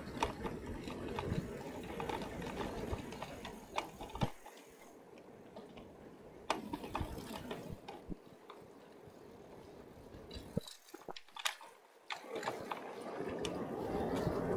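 Wind rumbling on the microphone of a moving folding bicycle, with scattered clicks and rattles from the bike. The rumble drops away twice for a second or so.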